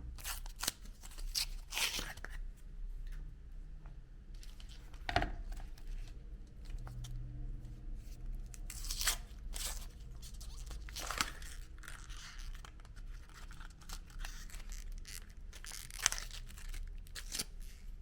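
Meat grinder running with a steady low hum, with irregular crunching and crackling as ice cream is forced through it.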